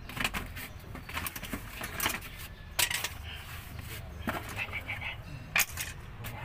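Metallic clicks and clinks of a clutch release bearing and its spring clip being handled and fitted onto the release fork by hand, the sharpest about three seconds in and again near the end.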